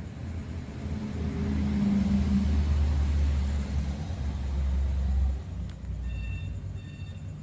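A passing road vehicle's low rumble builds, holds, then drops away about five seconds in. Short, high, evenly repeated chirps start about a second later.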